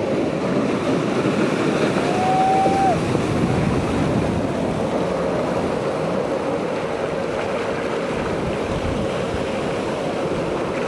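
Ocean surf rushing and breaking, with wind buffeting the microphone. A faint steady hum runs underneath, and a short high tone sounds about two seconds in.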